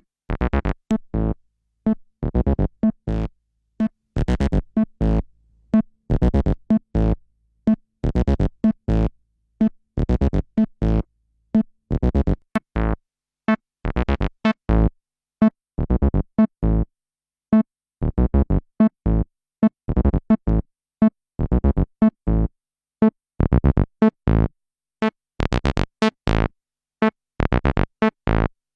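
Behringer TD-3 analog bass synthesizer playing a sequenced acid bassline of short, separate notes with gaps between them. The notes grow brighter and duller as the filter cutoff is swept.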